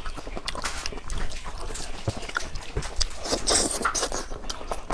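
Close-miked eating sounds: wet chewing of braised chicken wings with frequent lip smacks and mouth clicks, and a louder hissy smack about three and a half seconds in.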